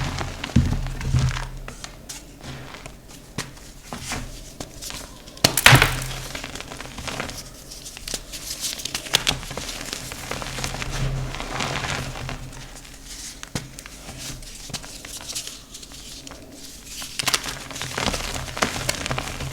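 Blocks of dyed gym chalk being crushed and crumbled by hand: a run of irregular dry crunches and crackles, with one sharp, loud crack about five and a half seconds in.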